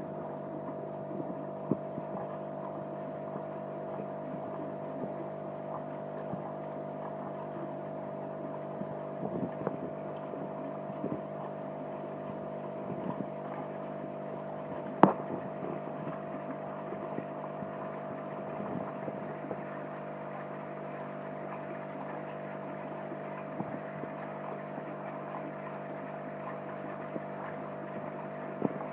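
Steady mechanical hum made of several held tones, with scattered faint ticks and one sharp click about halfway through.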